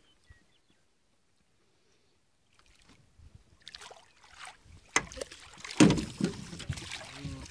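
Near silence, then water splashing as a catfish is scooped into a landing net and brought up against the side of the boat. There is a sharp knock about five seconds in, and the loudest splashing comes just after it.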